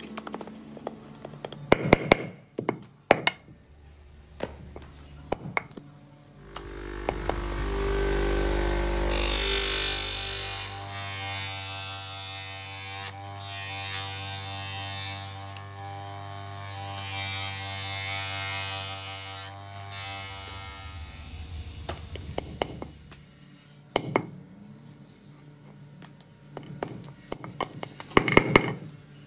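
An electric bench grinder spins up, and a steel blade is ground against its wheel with a steady grinding hiss, briefly lifted off a few times, before the motor runs down. Before and after this, the blade is tapped and scraped by hand on a wooden block, making sharp clicks and knocks.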